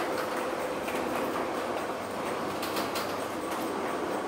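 Metal rolling shutter rattling steadily as it rolls, with a faint steady hum and a few sharper clacks about two-thirds of the way through.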